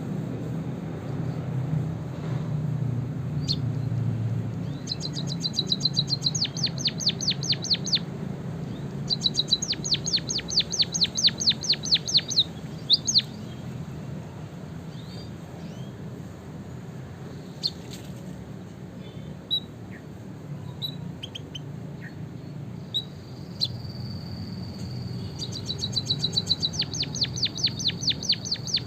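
Small songbirds singing: three bursts of fast trills of repeated high chirps, each lasting a few seconds, with scattered single chirps between them and a thin held whistle near the end, over a steady low hum.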